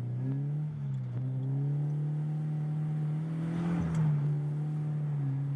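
Subaru BRZ's flat-four engine breathing through a newly fitted Invidia aftermarket exhaust, running steadily at low revs under light throttle, its pitch rising gently and then easing a little near the end.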